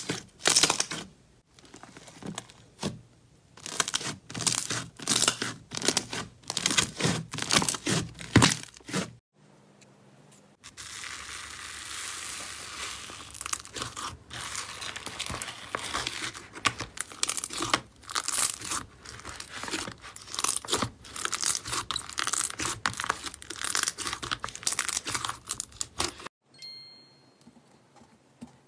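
Hands squeezing and pressing slime: a run of sharp, sticky pops and crackles, then after a short pause a denser, steady crackling as a textured slime is kneaded in a plastic tub. Near the end it goes quiet, with a few faint high tones.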